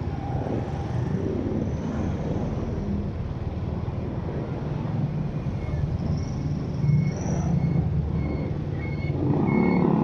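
Steady low rumble of a vehicle driving on a town road, with a short high beep repeating about twice a second from about halfway in.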